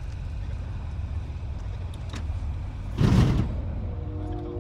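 An old car rolling off a tilted car-trailer ramp, with one loud thump about three seconds in as it comes down onto the ground. A steady low rumble runs underneath.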